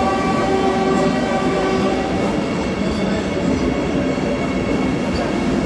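Vande Bharat Express train rolling slowly past along the platform. A steady chord of several tones sounds over the running noise and fades out about two seconds in.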